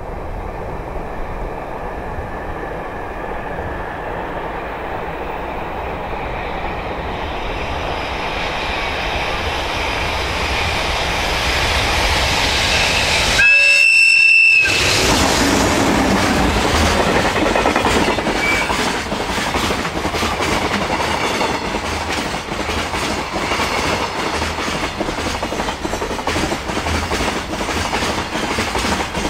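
Container freight train hauled by an EH500 electric locomotive approaching and passing, its rumble building over the first half. About halfway through the locomotive gives one short, loud blast on its AW-2 whistle horn, a warning to track-maintenance workers, and the wagons then run past with wheels clattering over the rail joints.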